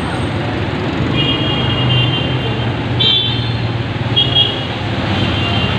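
Street traffic in the rain: a steady engine hum and an even hiss of rain and wet road, with several short high-pitched tones cutting in over it.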